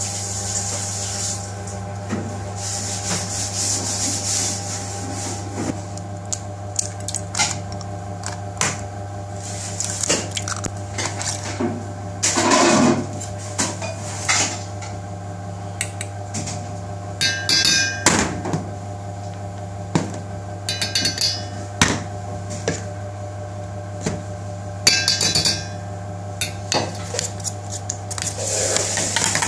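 Kitchen prep sounds over a steady background hum: scattered knocks and clinks of a knife on a plastic cutting board and of utensils against a stainless-steel bowl. Near the end a spoon clinks rapidly as it beats eggs and spice in the steel bowl.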